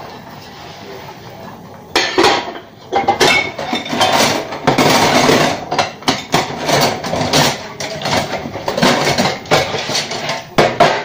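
Dishes and cutlery clattering in a stainless steel sink as they are washed by hand. It is quiet for about the first two seconds, then a fast, unbroken run of clinks and knocks begins and carries on.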